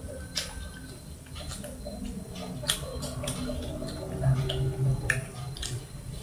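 Baby pig-tailed macaque chewing guava: scattered wet smacks and sharp clicks, irregularly spaced, over a low room rumble.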